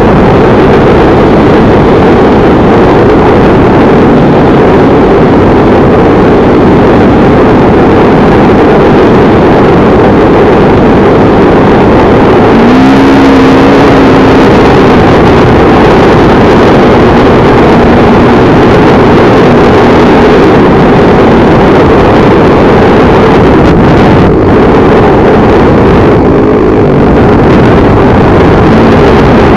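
Motorcycle engine running during a ride, under a loud, dense, steady noise. There is a brief rise and fall in engine pitch about 13 seconds in.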